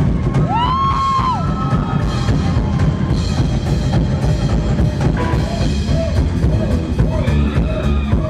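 Rockabilly band playing live, the drum kit driving it with bass drum and snare. About a second in, a high note slides up, holds briefly and falls away.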